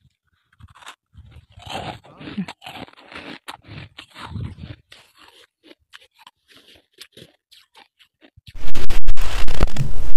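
A hand scrapes and scoops through soft, fresh snow, making bursts of crunching. Near the end, a much louder, rough crunching noise starts suddenly as a handful of snow is squeezed in a fist close to the microphone.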